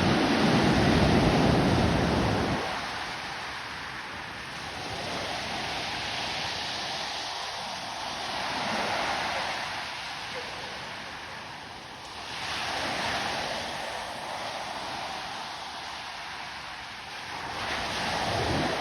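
Stormy Black Sea surf: waves breaking and rushing onto the shore in repeated swells, with a heavy low rumble in the first couple of seconds and further surges about every four seconds.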